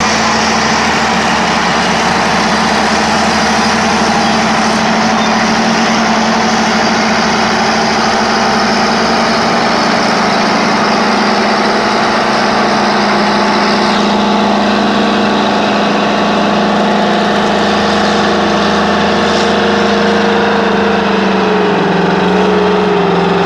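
Large diesel engines of a wheeled tractor-scraper and the D500 wheel dozer pushing it, running hard and steadily under load while the scraper loads. The engine pitch drops slightly near the end.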